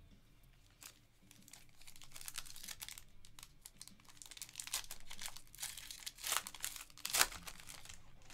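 Foil wrapper of a trading-card pack crinkling and tearing as it is pulled open by hand, with the sharpest crackle near the end.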